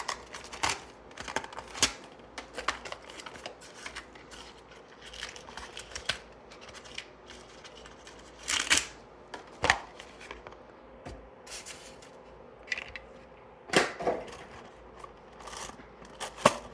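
Packaging being handled as an action figure is taken out of its box: irregular clicks, taps and short rustles, a few louder ones about midway and near the end.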